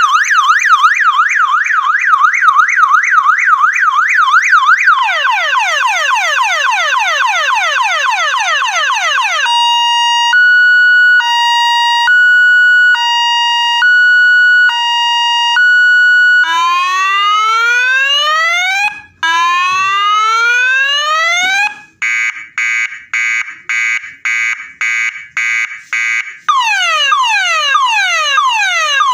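A 12-volt, 15-watt six-tone electronic siren sounding through a horn speaker, stepping through its tones. First a fast warble, then quick repeating downward sweeps, then a two-tone hi-lo switching about once a second. After that come two long rising whoops, a rapid pulsing tone, and the downward sweeps again near the end.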